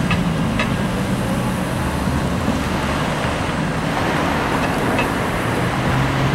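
Road traffic: cars driving over the railroad crossing, a steady rumble of tyres and engines with a low hum, broken by a few brief sharp clicks.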